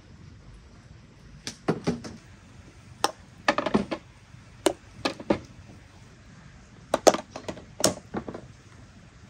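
Glass jars clinking and knocking against each other and the metal pot as filled compote jars are set one by one into a pot of hot water for water-bath processing. The sharp knocks come in several short clusters.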